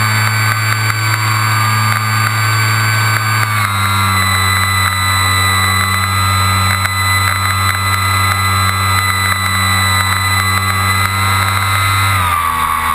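RC airplane motor running in flight, heard from a camera mounted on the airframe: a steady drone with a high whine. It drops in pitch about three and a half seconds in and again near the end as the motor slows.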